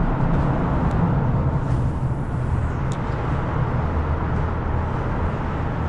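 Steady low rumble of road traffic crossing the bridge overhead, with a few faint ticks.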